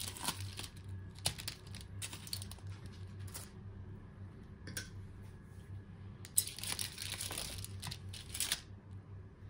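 Metal tongs and a fork scraping and clinking in a foil-lined baking tray, the aluminium foil crinkling as food is lifted out, in two spells with a sharp clink in the second.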